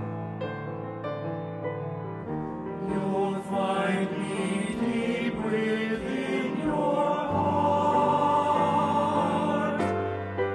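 Men's voices of a choir singing a slow anthem in long, sustained notes.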